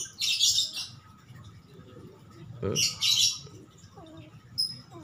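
Small birds chirping: two quick bursts of high chattering, the first just after the start and the second about three seconds in, with a single short tweet near the end.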